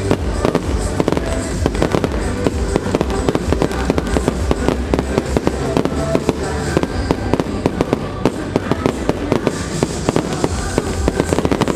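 Aerial fireworks shells bursting, with dense, rapid crackling from crackling stars and scattered louder bangs, over music played with the display.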